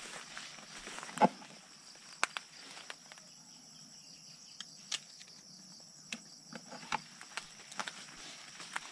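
A steady high-pitched drone, like insects, with scattered sharp clicks and snaps over it; the loudest snap comes about a second in.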